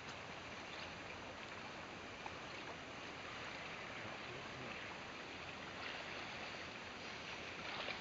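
Steady rush of a river's flowing current.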